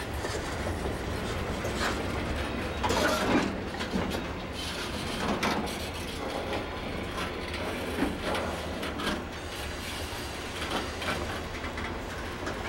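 Freight cars rolling past on jointed track: a steady low rumble of wheels with repeated clicks, and a few louder bursts, the strongest about three seconds in.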